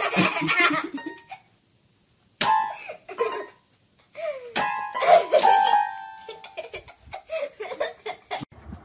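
Small electronic toy keyboard sounding jumbled, overlapping notes as a puppy presses its keys, in short bursts with silent gaps about a second in and about four seconds in.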